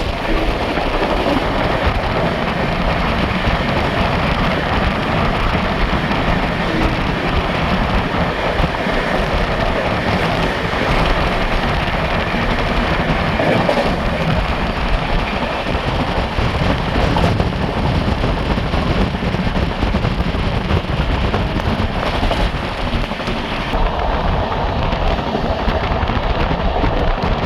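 Gandhidham–Bangalore Express passenger train running at speed: a steady, loud rumble and rush of wheels on rail.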